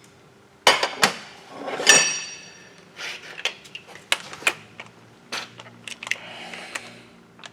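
Hand tools and bolts clicking and clanking against metal during bolt removal, with a sharp metallic clank that rings briefly about two seconds in, followed by scattered lighter clicks and taps.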